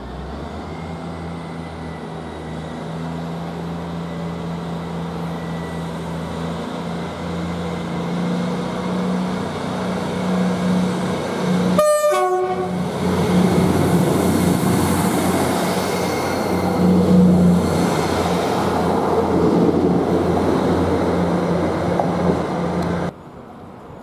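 Class 158 diesel multiple unit's engine running at a steady low note that slowly grows louder. About halfway there is a brief break and a short falling run of tones, after which the engine sound is louder and rougher with more hiss, until it cuts off suddenly near the end.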